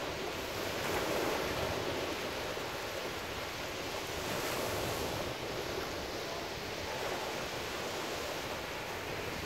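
Small ocean waves breaking and washing up onto the beach: a steady surf rush that swells a little about a second in and again around the middle.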